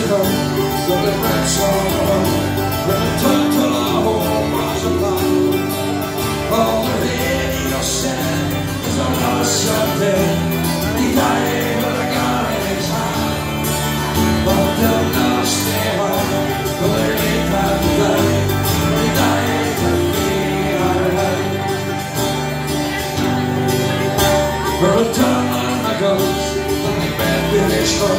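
Live folk band playing at full volume, with a strummed acoustic guitar, a mandolin and a bass guitar behind a male singer.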